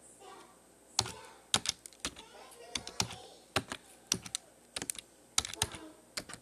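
Typing on a computer keyboard: irregular key clicks, a few at a time with short pauses between.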